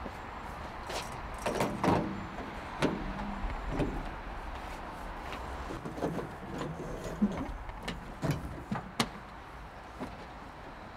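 Scattered clicks and knocks as a driver climbs up into a Renault lorry's cab and handles the cab door, over a steady low hum.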